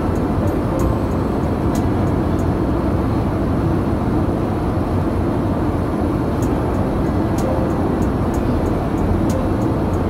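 Steady cabin noise of a jet airliner in cruise: an even, low rumble of engines and airflow heard from inside the passenger cabin, with faint light ticks now and then.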